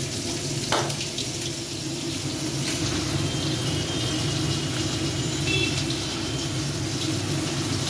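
Steady sizzle of pabda fish frying in hot mustard oil in a kadai.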